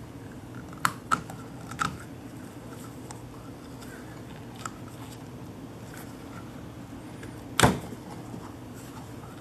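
Brake caliper piston and parts handled on a workbench: a few light clicks and taps, then one sharp knock near the end, over a steady low hum.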